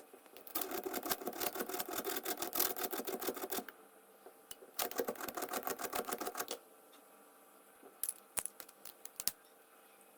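Sandpaper rubbed in rapid short strokes on the metal lid edge of a Zippo lighter, sanding down the slanted cut that leaves a gap between lid and case: two runs of about three and two seconds, then a few light taps near the end.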